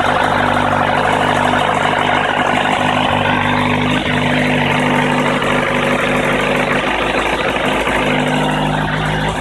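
Kawasaki ZRX1100's air-cooled inline-four engine idling steadily, making a noise its owner finds strange.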